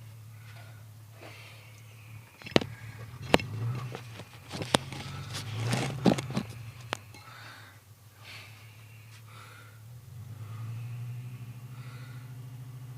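A car engine idling with a steady low hum, with several sharp knocks and clanks in the first half. About ten seconds in the engine's hum becomes louder.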